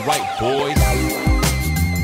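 Background music: an electronic track with a steady beat and heavy bass, and gliding synth sounds in the first half.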